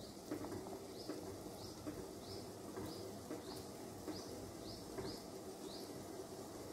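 Sugar syrup at a rolling boil in an aluminium pan, with faint bubbling and a few soft plops as chhena balls are slipped in. A bird chirps repeatedly in the background, a short rising chirp about every two-thirds of a second.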